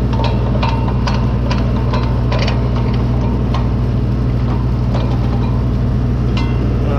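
Large diesel engine idling steadily, with short sharp clicks and ticks over it, several a second at first and a few more near the end.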